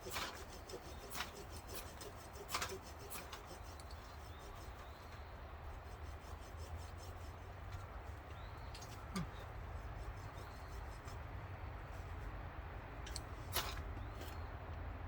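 Ferrocerium rod being struck with a scraper to throw sparks onto tinder: short, sharp scrapes, several in the first three seconds and a few more later and near the end.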